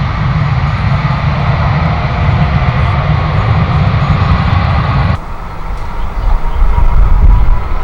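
Jet airliner engines running loud and steady, then cut off abruptly about five seconds in, leaving a deep low rumble.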